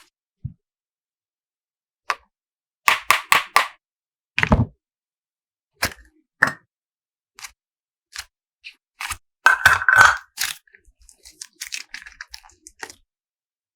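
Hands handling slime and plastic toys, making a series of sharp crackles and clicks: a quick run of four about three seconds in, a dull thump just after, a louder cluster around ten seconds, then fainter scattered crackles.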